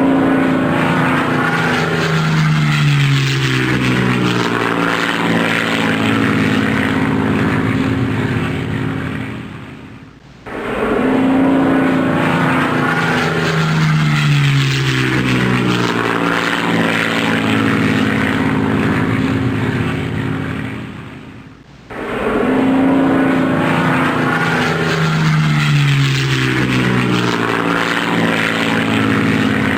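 Airplane landing sound effect: loud engine noise whose tones fall in pitch a few seconds in, then hold steady and fade. The same clip of about eleven seconds plays three times, each restart abrupt.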